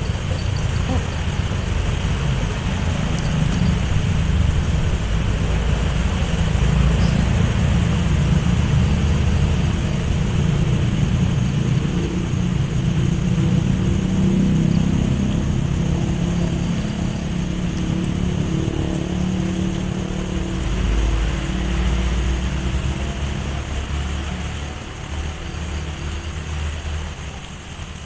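Road traffic on the bridge overhead: a steady low rumble that swells and eases as vehicles pass, fading near the end.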